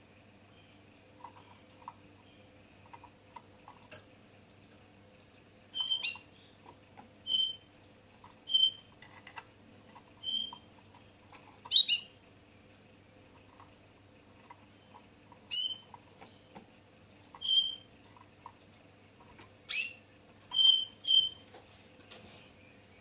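Caged finch giving short, sharp chirps, about one every one to two seconds, starting a few seconds in, with faint small ticks between them.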